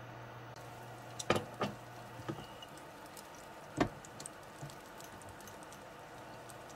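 Chicken-breast patties being laid into hot oil in a frying pan: a few short soft knocks as they go in, over a faint fine crackle of frying oil and a steady low hum.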